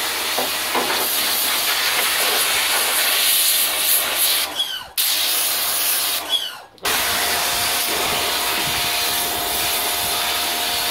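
Pressure washer spraying a jet of water onto a steel car door: a steady, loud hiss over the low hum of the machine. The spray stops twice briefly, about four and a half and six and a half seconds in.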